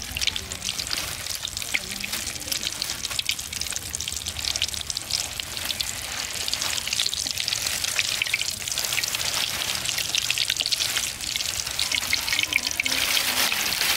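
Egg frying in hot oil in an iron kadai, a steady sizzle with fine crackling and spitting that gets a little louder in the second half.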